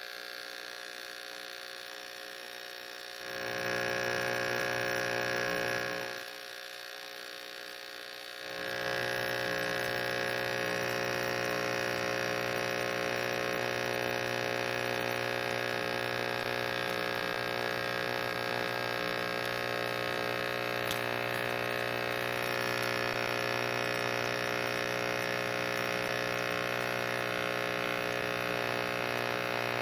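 Steady machine hum from a pressure washer's motor and pump. It steps up louder and fuller about three seconds in, falls back briefly, and rises again about eight seconds in, then holds steady.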